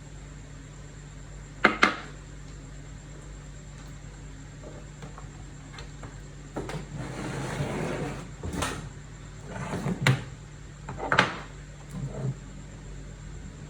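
Hand-handling of small hard parts: two sharp clicks close together, then a few seconds of rubbing and scraping, followed by three more separate clicks or knocks, over a steady low hum.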